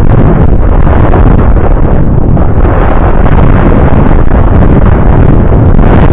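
Wind blasting the microphone of a camera on a moving bicycle: a loud, steady low rumble with no let-up.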